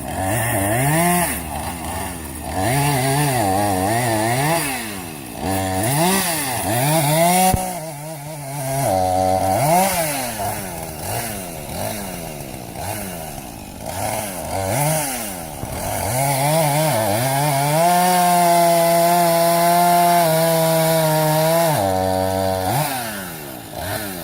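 Gasoline chainsaw revving up and down over and over, then held at high revs for about five seconds before dropping back to idle near the end.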